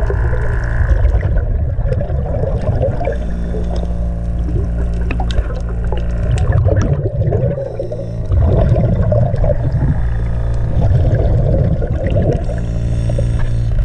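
Underwater recording: bursts of bubbling and gurgling over a steady low hum, with scattered sharp clicks.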